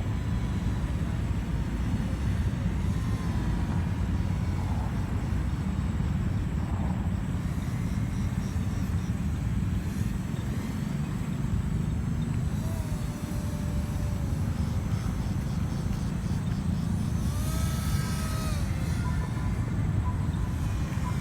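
Strong wind buffeting the microphone in a steady low rumble, with the faint whine of an RC paramotor's propeller motor rising and falling in pitch, clearest about seventeen to nineteen seconds in.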